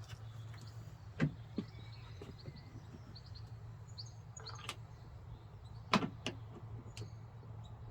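Scattered sharp metallic clicks and knocks from hand tools fastening the replacement tailgate latch motor with its 10 mm bolts, over a steady low hum. The loudest knocks come about a second in and again near six seconds.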